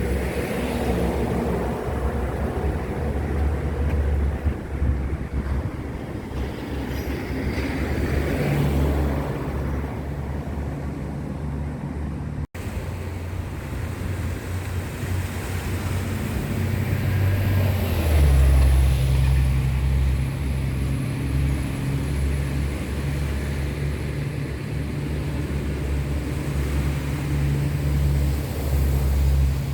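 Steady low engine drone that gets louder about eighteen seconds in, with a brief break in the sound about twelve seconds in.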